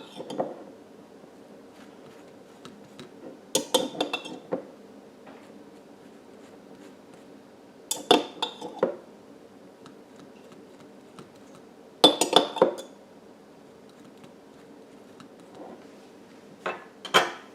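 Cutlery clinking and scraping against a dish in four short bursts, as honey mustard is spread onto a bagel, over a faint steady hum.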